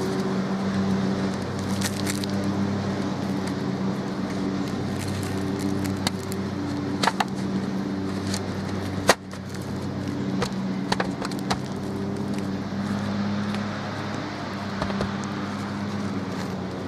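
Scattered clicks and knocks of a galvanized-steel and OSB Kwik Plug roof patch being worked into a square hole in the roof decking, with a sharp knock about nine seconds in, over a steady low hum.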